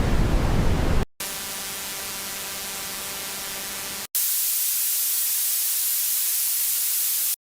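Simulated tinnitus sounds played one after another: a deep rushing noise that stops about a second in, then a steady buzzing hum for about three seconds, then a high hiss for about three seconds that cuts off abruptly.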